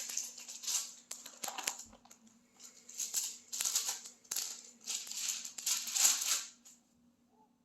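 Thin Bible pages being leafed through by hand: a quick, irregular run of paper rustles and flicks that stops about a second before the end.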